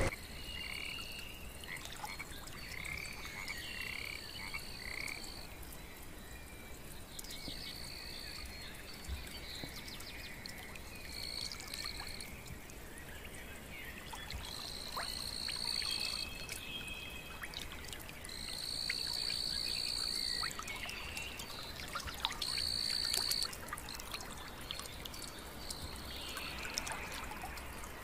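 Frogs calling in long, high, steady trills, each lasting a second or two and repeated with pauses, the loudest in the second half. A few short chirps come in the first few seconds.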